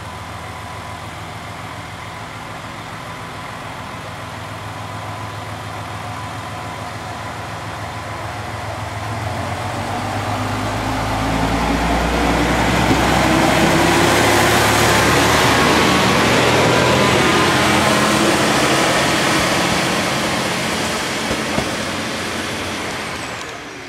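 Chizu Express HOT3500 series diesel railcar's engine idling steadily, then revving with a rising note as the railcar pulls away and passes close by. Engine and running noise are loudest about halfway through, then fade as it moves off.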